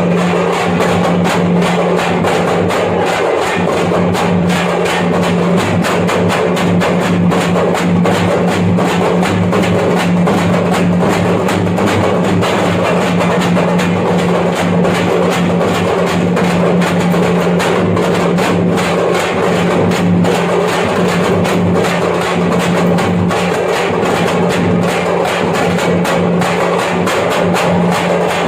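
Thappattam (parai) frame drums played fast and continuously by an ensemble in a dense, driving rhythm over a steady low tone.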